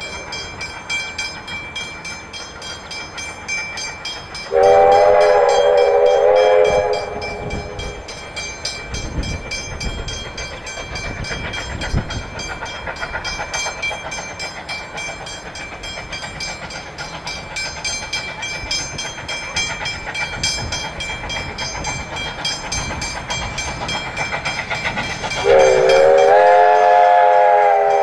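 Steam locomotive hauling a passenger train, its exhaust beating rhythmically as it works towards the crossing. It gives two long blasts on a whistle that sounds several notes at once, one about five seconds in and one near the end.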